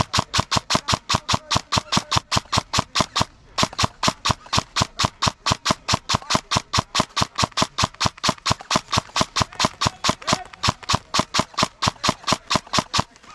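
Airsoft gun firing a long full-auto string of sharp shots, about seven a second, with a short break about three and a half seconds in.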